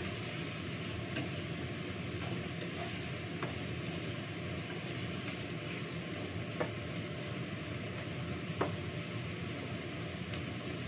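Sliced luffa (gambas) sizzling in a frying pan as it is stir-fried with a wooden spatula, the spatula knocking sharply against the pan a few times.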